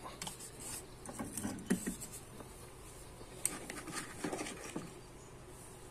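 Light clicks and scrapes of eggs being set onto the wire-mesh trays of an egg incubator, with the trays handled.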